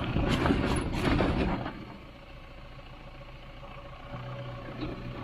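A vehicle engine running, with clattering knocks over the first second and a half, then dropping to a quieter steady idle.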